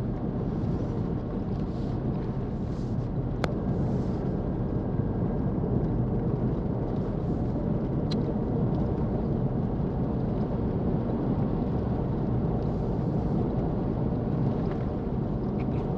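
Steady road and engine noise of a car driving along at speed, heard from inside the cabin, with a short sharp tick about three and a half seconds in.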